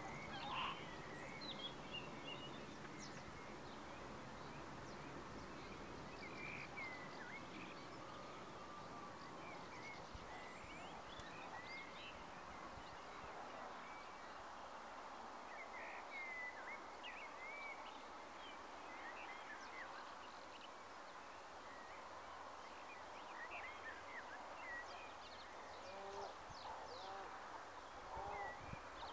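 Many distant birds calling: short chirps and whistles scattered throughout, faint, over a steady background hiss. A low rumble under them fades out about halfway through.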